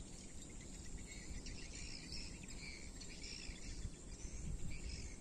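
Faint repeated chirping calls of small animals in the riverside vegetation, over a steady low background noise.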